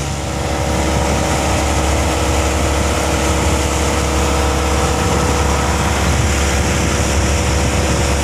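A wooden fishing boat's inboard engine running steadily while the boat is under way, a loud, even low drone.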